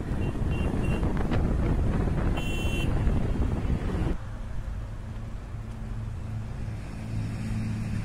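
Wind buffeting the microphone and road noise while moving along a highway beside a JCB 3DX backhoe loader, with a short vehicle horn toot about two and a half seconds in. About four seconds in the sound cuts abruptly to a steady diesel engine hum, the backhoe's engine running close by.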